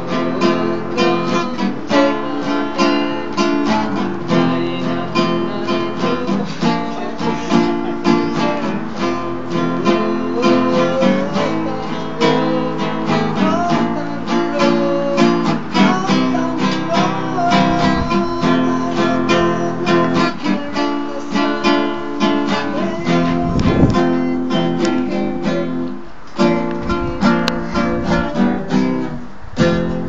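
Acoustic guitar music, strummed and picked in a steady, quick rhythm.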